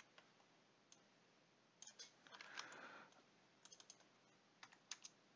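Faint, scattered computer keyboard keystrokes and clicks over near silence, a handful of separate taps rather than steady typing.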